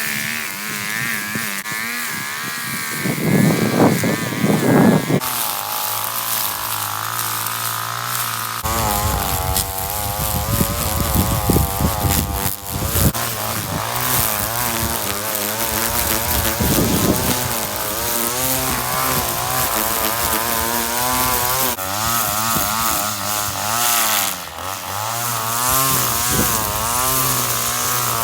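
Two-stroke petrol strimmer cutting grass, its engine pitch rising and falling as the throttle is worked, with louder stretches as it bites into thicker growth.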